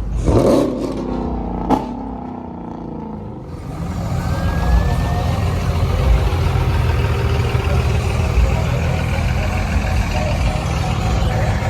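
Car engine coming down from a rev, its pitch falling over about three seconds, with one sharp crack about two seconds in. It then settles into a steady low rumble.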